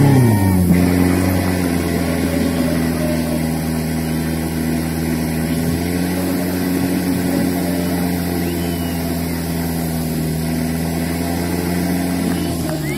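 Portable fire pump's engine running at high, steady revs, driving water through the hoses to the jets. It eases down from a burst of revs at the start, and its note drops near the end.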